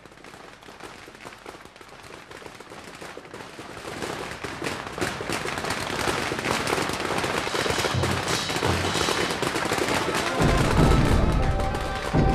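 A long string of firecrackers going off in a fast, dense crackle that builds steadily louder. About ten seconds in, heavy beats on a large drum join in.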